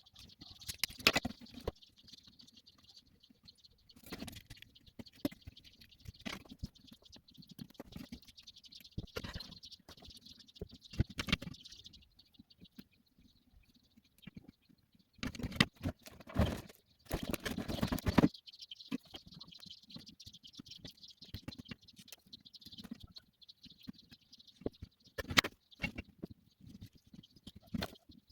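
Handling noises on an electronics workbench: irregular clicks, taps and scraping, with the busiest, loudest stretches in the middle, over a faint high hiss that comes and goes.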